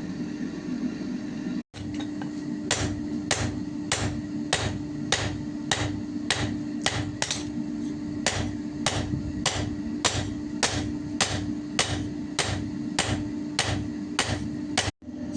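Evenly paced hammer blows on a steel axe head during its repair, about one and a half strikes a second, over a steady hum.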